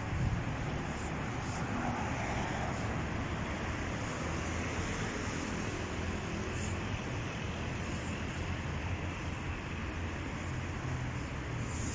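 Steady city road traffic: a continuous low rumble and hiss of cars passing on the street.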